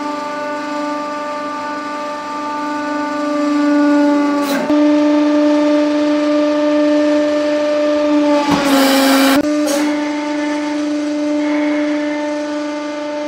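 Hydraulic press running with a loud, steady humming whine as the ram presses down on objects. About nine seconds in, a loud noisy burst of about a second as something under the ram gives way.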